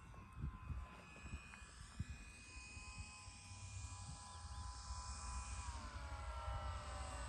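Faint whine of a radio-controlled WACO model biplane's motor and propeller flying a landing approach, several pitch lines held steady and growing slowly louder, then sliding down in pitch over the last second or so. Low wind rumble on the microphone underneath.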